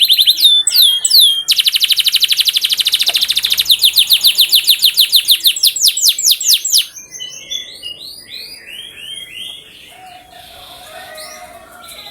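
Domestic canary singing: loud, very fast trills of repeated downward-sweeping high notes, then a slower roll of the same notes, and from about seven seconds in a quieter run of varied chirps and twitters.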